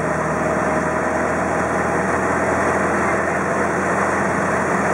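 Car engine and road noise while driving: a steady, even drone with a low hum.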